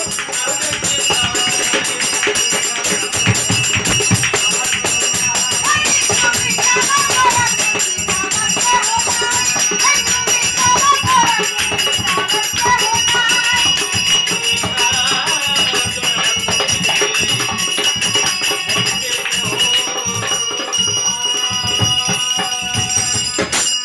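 Harmonium playing sustained chords under singing of a Bengali bicched gaan folk song, with jingling hand percussion keeping a steady beat.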